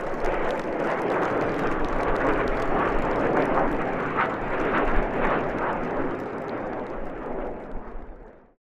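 Crowd applauding, a dense patter of clapping over a low rumble; it fades and then cuts off abruptly near the end.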